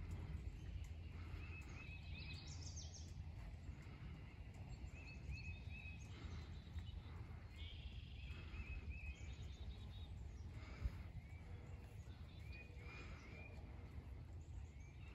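Outdoor ambience: a low wind rumble on the microphone, with a songbird singing short runs of chirps every few seconds. A single brief thump about eleven seconds in.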